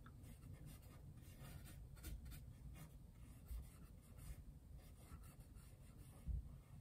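Faint scratchy strokes of a paintbrush on a canvas panel, with a soft thump near the end.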